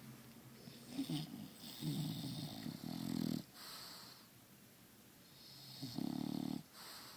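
A bulldog snoring. There is a short snore about a second in, then a long rattly one lasting about a second and a half, then quieter breathing, and another rattly snore near the end.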